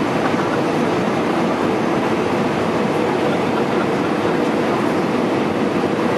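Steady roar of an Airbus A320's IAE V2500 turbofan engines and rushing air, heard from inside the cabin beside the wing, as the jet flares low over the runway to land.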